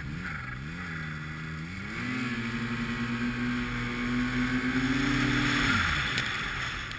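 Arctic Cat snowmobile engine revving up and down a few times, then held at high revs for about three seconds while pushing through deep snow, before the throttle is let off and the revs drop away near the end. A steady rushing hiss runs over the engine.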